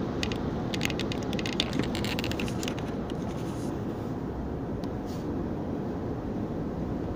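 Steady road and tyre noise of a car at highway speed, heard inside the cabin, with a scatter of light clicks and ticks over the first three seconds.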